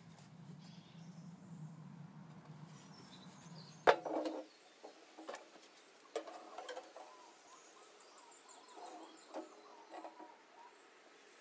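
Faint low steady hum, cut off by a sharp click about four seconds in, followed by quiet handling sounds: a felt marker scratching and squeaking on a tin olive oil can, and a folding ruler clicking as it is laid against it.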